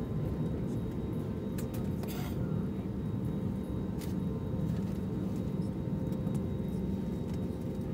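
Cabin noise inside an Airbus A320neo: a steady low rumble from its CFM LEAP-1A engines with a faint steady whine above it. A brief rattle comes about two seconds in.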